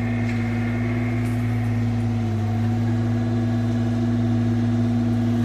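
Mini excavator's diesel engine running steadily, with a slight dip in pitch about two seconds in.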